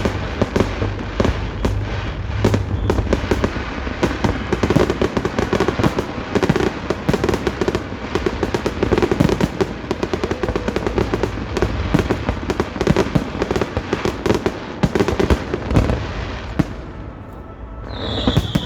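Fireworks display: a dense, rapid barrage of bangs and crackles that eases off near the end, followed by a high whistle.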